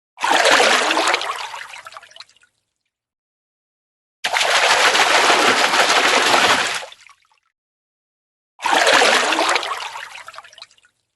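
Fish splashing in water, three separate splashes with silence between. The first and last start sharply and fade out over about two seconds. The middle one is a steadier spell of splashing, nearly three seconds long, that cuts off suddenly.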